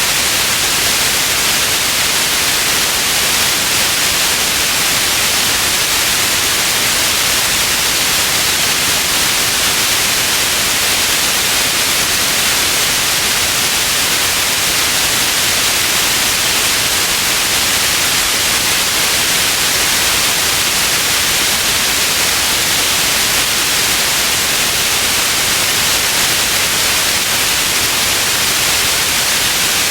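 Steady, unbroken white noise: an even hiss, strongest in the high frequencies, with no change or events.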